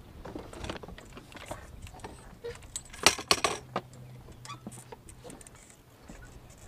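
Clicking and rattling of gear handled over the side of a small fishing boat as a marker buoy is pulled in, loudest in a quick burst of sharp clicks about three seconds in. A faint low hum runs for a couple of seconds after that.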